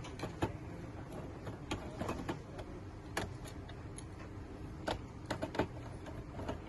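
Light clicks and taps of a screwdriver and small screws as the screws on a POS terminal's cover are taken out, irregular and a few per second.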